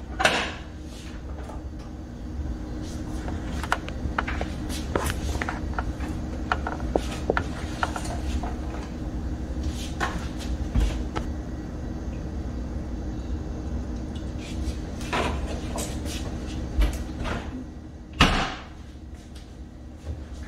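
Scattered knocks and clatters of cooking things being handled at an electric stove, such as a plastic oil jug, bottles and a small saucepan, over a steady low hum. There is a louder knock near the end.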